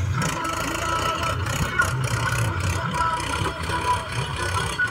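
Tractor's diesel engine running steadily as it pulls a tined cultivator through dry soil.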